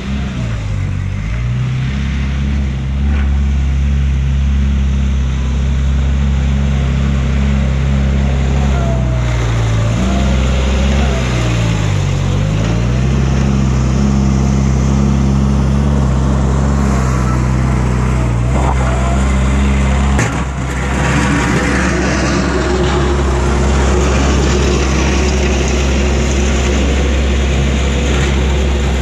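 Bobcat 463 skid steer's small diesel engine running under load as it drives. Its pitch dips and recovers about a second in and again around twelve seconds. After about twenty seconds the steady engine note gives way to a rougher, noisier sound.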